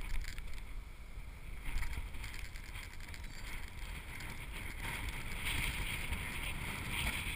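Wind buffeting a GoPro camera's microphone: a steady low rumble with a rushing hiss above it that grows a little stronger near the end.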